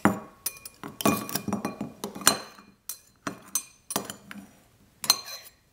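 Metal knife clinking and scraping against a tin can in a ceramic bowl: a rapid, uneven series of sharp clinks, each with a short metallic ring.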